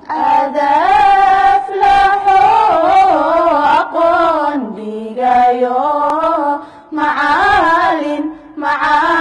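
A single voice singing a slow, chant-like melody in long phrases, holding and bending its notes, with short pauses for breath between phrases.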